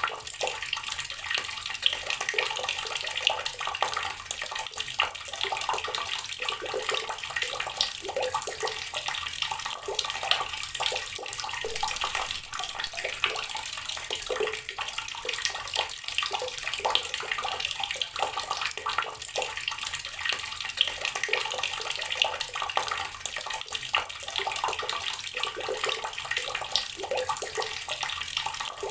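Water from a tap pouring steadily onto rocks, a continuous splashing and gurgling with many small irregular splashes.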